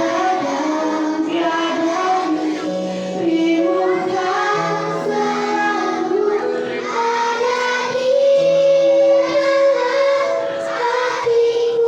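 Children singing a melody over a music backing of held notes.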